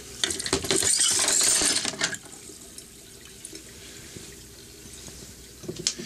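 Glock 27 pistol parts and cleaning liquid dumped from a glass beaker into a perforated plastic box in a sink: a splash with the parts clattering for about two seconds, then a quieter steady trickle of water.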